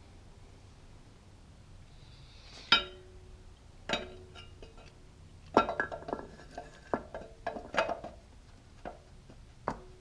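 Metal clinks and knocks as a Ford E4OD transmission's center support is worked down and seated into the transmission case. One sharp clink about three seconds in is the loudest, followed by a run of clinks and knocks, some briefly ringing, in the second half.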